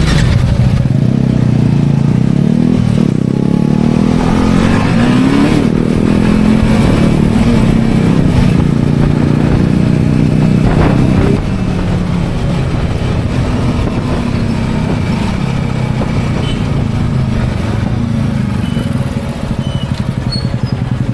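TVS Apache 310 motorcycle's single-cylinder engine running under way, its pitch rising and falling with the throttle and gear changes. It is louder for the first half and drops in level about eleven seconds in.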